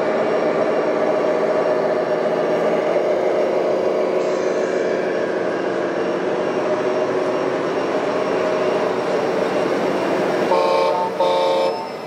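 Radio-controlled model trucks with their sound modules playing a steady running diesel engine. Near the end a truck horn sounds twice in short blasts.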